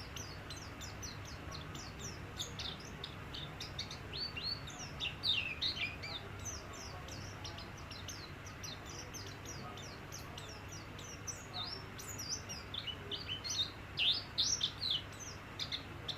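White-eye (pleci) in full, active song: a fast, unbroken twittering of short, high, falling notes, loudest in bursts about five seconds in and again near the end. A faint steady low hum runs underneath.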